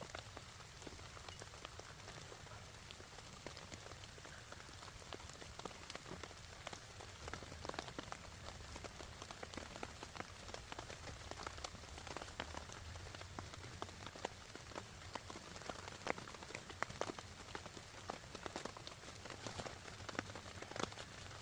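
Rain falling steadily: a constant hiss with many sharp individual drop hits scattered through it.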